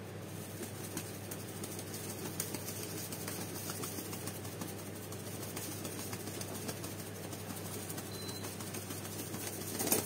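Pigeons' wings flapping and feathers rustling as one pigeon mounts and treads another during mating, with the loudest flurry of flapping near the end, over a steady low hum.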